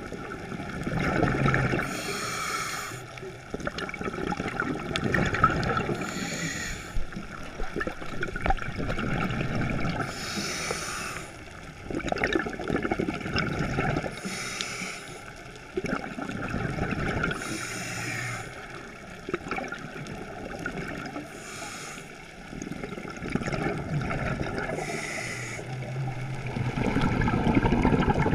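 Scuba breathing through a regulator, heard underwater: the hiss and bubbling of each breath, repeating about every four seconds.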